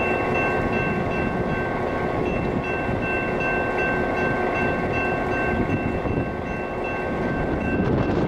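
Railroad train running, a steady rumble with a high steady whine held over it.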